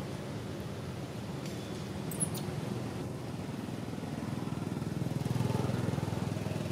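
A motor vehicle engine running in the background: a low, steady rumble that grows louder about five seconds in. A short click sounds about two seconds in.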